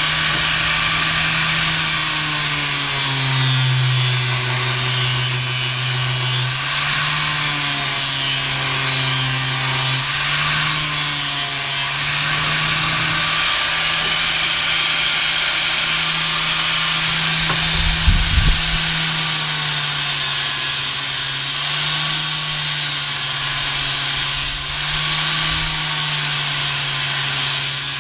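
Angle grinder with a sanding disc running continuously as it grinds down an engine pulley; the motor's pitch sags and recovers again and again as the disc is pressed into the work. A brief knock sounds about eighteen seconds in.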